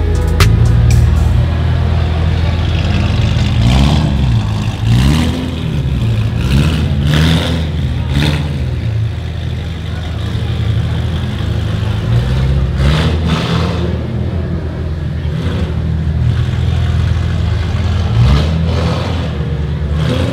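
Car engines revving again and again, the pitch swelling up and falling back over a steady low running note, with occasional sharp cracks from the exhaust.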